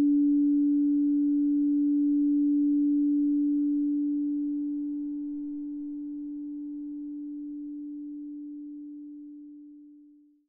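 Pure electronic sine tone held at one steady low-middle pitch, with faint overtones above it that drop away part-way through. It fades slowly and dies out to silence near the end.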